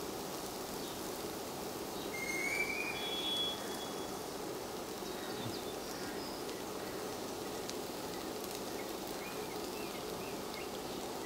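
Low, steady sizzle of chopped onion and boiled potato cooking in oil in a nonstick frying pan. A short high chirping call comes about two seconds in, and a few faint chirps follow near the end.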